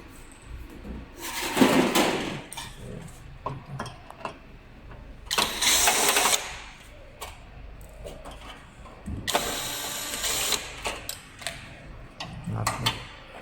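Electric fireplace running in flame-only mode, its flame-effect mechanism making a steady mechanical rattle with scattered clicks. Three louder rushes of noise, each about a second long, come about a second in, near the middle and about ten seconds in. The noise is the fault: the fireplace should be quiet with only the flame on.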